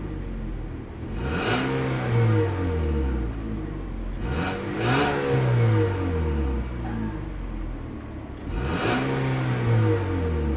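Buick Envision's 2.0-liter turbocharged four-cylinder engine revved three times from idle. Each time the revs rise quickly and then fall back over a couple of seconds.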